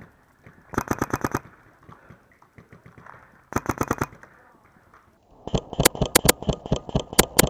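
Paintball marker firing in rapid strings of about ten shots a second: a short string about a second in, another about halfway through, and a longer string near the end.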